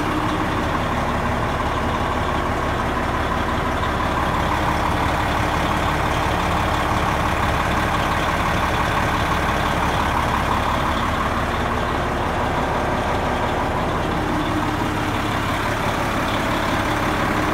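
A 1999 Oshkosh 4x4 dump truck's Detroit Diesel engine idling steadily.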